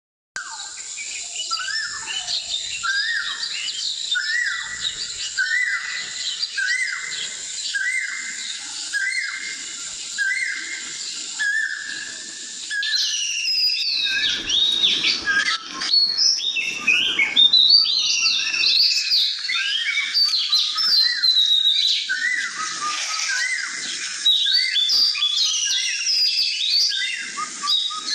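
Birdsong: a short whistled note repeated about once a second, joined from about thirteen seconds in by a busier mix of higher, quick rising and falling chirps.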